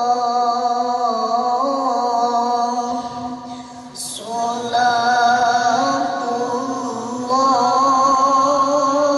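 A boy qori reciting the Quran in the melodic tilawah style into a microphone, heard over loudspeakers, drawing out long ornamented notes. He breaks off for a breath about three to four seconds in, then carries on.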